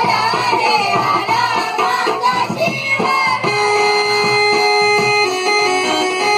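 Live folk music: an ornamented, wavering vocal melody for about the first three seconds, then steady held keyboard notes.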